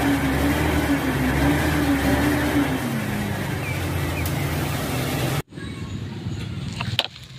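A motor vehicle engine runs with a steady hum and rushing noise. The hum drops in pitch about three seconds in, and the sound cuts off suddenly after about five and a half seconds. A few light clicks follow near the end.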